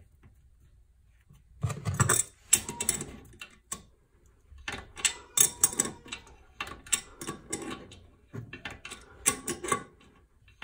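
Adjustable wrench turning the nut on a toilet floor bolt in short strokes while locking pliers hold the bolt, giving an irregular run of metal clicks and scrapes that starts about a second and a half in.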